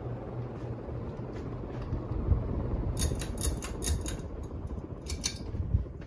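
Craftmade Yorktown ceiling fan running with a steady hum and whoosh of air. A quick run of sharp clicks comes about halfway through and a few more near the end, with a couple of low thumps.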